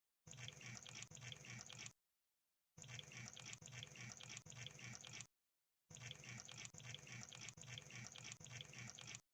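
Crab sound effect: dense, rapid clicking and crackling in three bursts, each cut off abruptly into dead silence.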